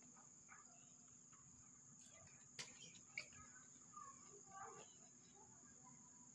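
Near silence: a faint, steady, high insect trill, typical of crickets, with faint scattered chirps and two soft clicks about half a second apart near the middle.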